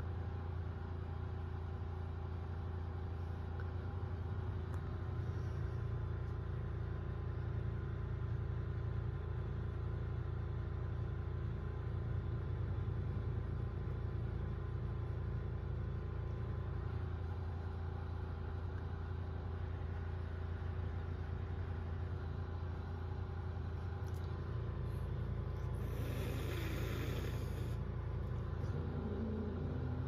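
Steady low mechanical hum with a constant drone, and a short burst of hiss about three-quarters of the way through.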